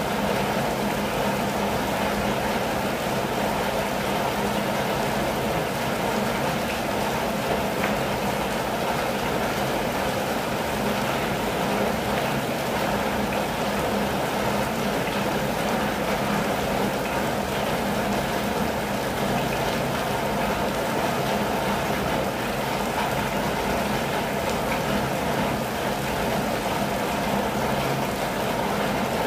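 Steady rain on a campervan's roof and windows, heard from inside as an even, unbroken wash of noise.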